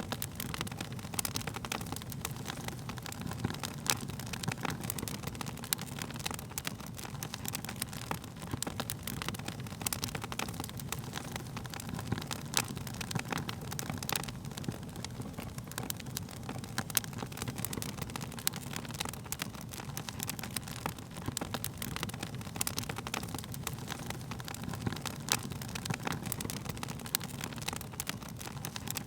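Wood fire crackling: frequent sharp pops and snaps of burning wood, scattered irregularly over the low, steady rumble of the flames.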